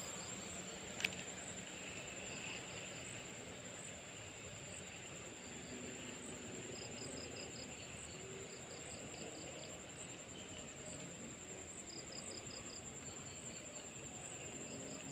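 Insects chirping: a steady high-pitched whine with groups of quick, rapid chirps repeating every second or two. A single sharp click about a second in.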